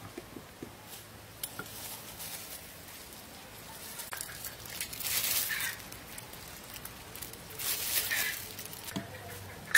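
Metal hand lime press squeezing lime juice into a clay mortar: faint clicks and two short hissing splashes, about five and eight seconds in.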